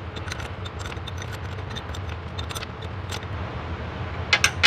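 Steel combination wrench working a nut on the transmission nose-cone studs of a 1956 VW Beetle: faint, irregular metal ticks and clinks, with a few louder clinks near the end, over a steady low hum.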